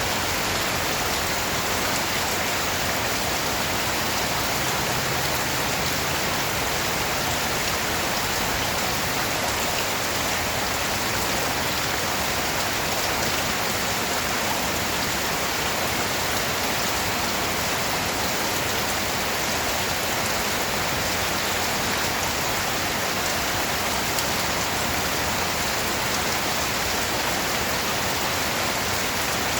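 Steady rain falling on a surface: a dense, even hiss of many drops with no single drops or thunder standing out.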